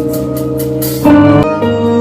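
Background music of held keyboard or piano chords over a light beat, growing louder with a change of chord about a second in.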